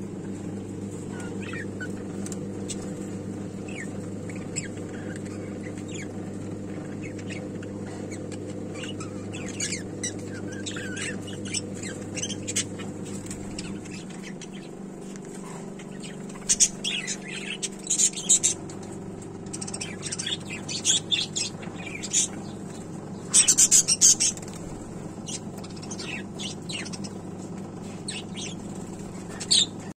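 Budgerigars chirping and chattering: short high calls coming in clusters, busiest and loudest in the second half. A steady low hum runs underneath.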